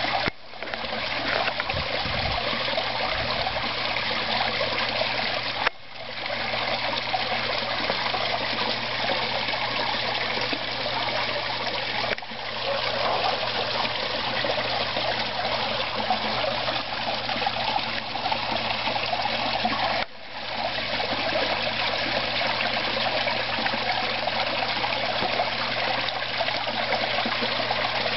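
Small rock waterfall splashing steadily into a garden koi pond, with the sound briefly dropping out three or four times.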